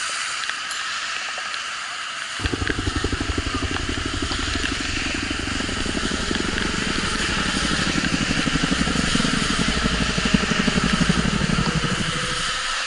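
Riding noise picked up by a camera on a moving bicycle: a steady hiss of wind and tyres on a wet road. A couple of seconds in, a rapid fluttering low rumble joins it and grows slowly louder, typical of wind buffeting the microphone.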